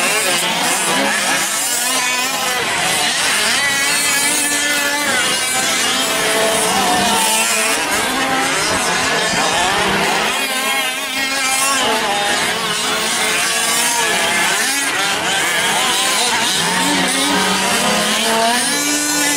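Several 5th-scale gas RC trucks' small two-stroke engines buzzing and revving together, their pitches rising and falling and overlapping as the trucks accelerate and slow through the corners.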